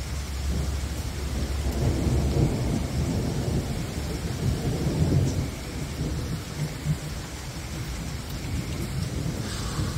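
Thunder rumbling during a thunderstorm, swelling about a second and a half in and easing off after about six seconds, over steady rain.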